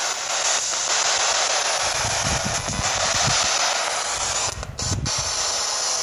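Spirit box sweeping through radio frequencies: a steady hiss of static, broken by a couple of brief gaps a little before the end.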